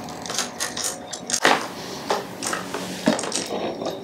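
Irregular metal clicks and clinks of a hand tool working a Denali fork-tube light mount clamp as it is tightened on a motorcycle fork leg, with a louder knock about one and a half seconds in and another about three seconds in.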